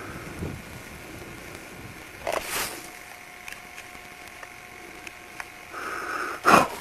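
Handling noise from a handheld camcorder swung about in brush: a short noisy rustle about two seconds in and a louder one near the end, with a faint steady tone in the middle.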